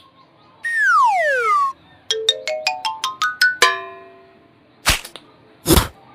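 Cartoon sound effects: a falling slide-whistle glide, then a quick rising run of eight short chime-like notes, then two short whooshes about a second apart near the end.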